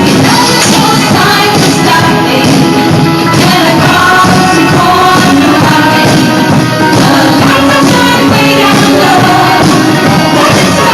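Live band music, loud and steady, with drums and pitched parts.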